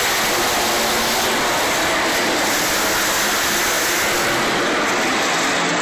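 Monster truck's supercharged V8 engine running, heard from the stands as a loud, steady, dense noise with no break.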